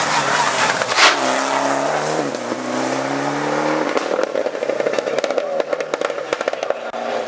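Rally car engine accelerating hard: a sharp bang about a second in, then the revs climb, drop briefly at a gear change and climb again. Later the engine note fades under a run of short crackling pops.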